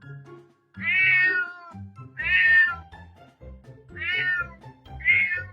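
A domestic cat meows four times, about a second and a half apart, each meow falling slightly in pitch. Soft background music plays underneath.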